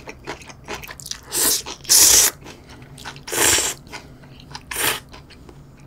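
A person slurping instant ramen noodles: four slurps, the loudest about two seconds in, with soft chewing sounds between.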